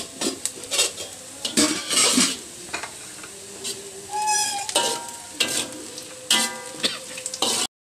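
A metal spatula scraping and clinking irregularly against a metal kadai as chopped onions, dried red chillies and curry leaves sizzle in hot oil. A few short ringing tones sound about four to seven seconds in, and the sound cuts off suddenly near the end.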